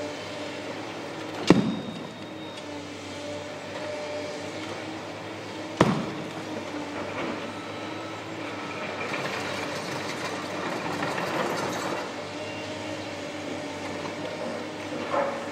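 Tracked demolition excavators' diesel engines running steadily, with two sharp heavy bangs about four seconds apart and a smaller one near the end as the machines break up concrete. A rough, gritty noise swells in the middle.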